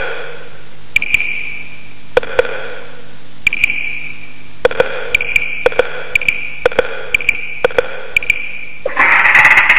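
Sparse, sharp struck percussion notes in the musical accompaniment, each with a short ringing tail. They come singly and in pairs about a second apart, then closer together. Near the end, fuller music swells in.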